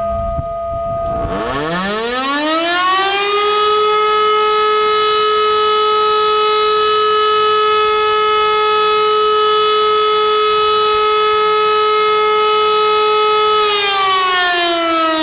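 E57 electromechanical civil-defence siren sounding for a test: it winds up in rising pitch from about a second in, holds a loud steady tone for about ten seconds, then begins to wind down near the end.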